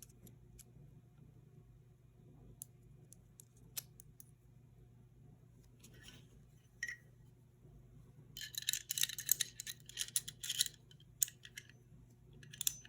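Small steel pistol parts being handled during reassembly: scattered light clicks and taps, with a couple of seconds of quick scratchy rustling and scraping about eight seconds in. A steady low hum sits underneath.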